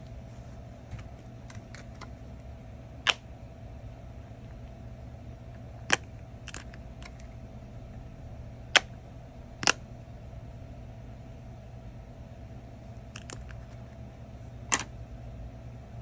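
Several short, sharp clicks spaced irregularly, the loudest a little past the middle, as a magnetic accessory snaps onto the skinned back of an iPhone and is pulled off again to test the magnet's hold. A steady low hum runs underneath.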